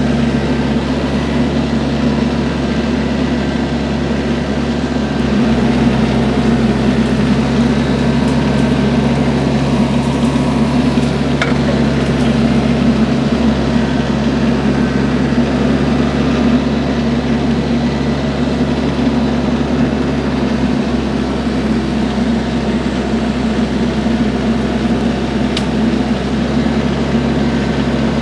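Compact diesel tractor engine running steadily under a constant load, with a steady low hum and no let-up.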